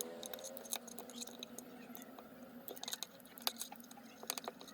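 Small clicks and crackles from prying open a Bluetooth neckband's plastic housing, over a faint steady hum.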